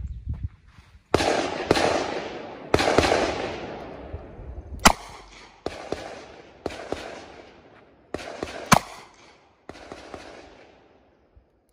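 A string of revolver shots of .45 Colt from a Taurus Raging Hunter .460 S&W revolver, fired about a second or so apart. Each shot is followed by a long echoing decay, and a few shorter, sharper cracks fall in between.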